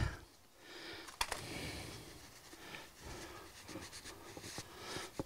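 Faint rustling and handling noises as a rag is wiped over a mower-deck spindle housing and the metal housing is handled and set down, with one light click about a second in.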